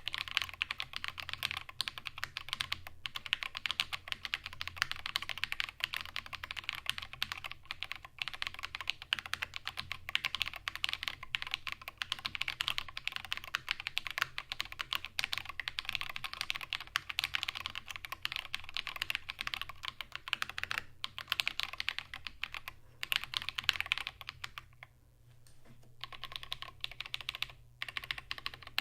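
Steady, fast typing on an XD75re ortholinear mechanical keyboard with Krytox-lubed Holy Panda tactile switches and SA keycaps, in an aluminum case with a tempered glass bottom, giving a muted, "thocky" keystroke sound. The typing stops briefly near the end and then resumes.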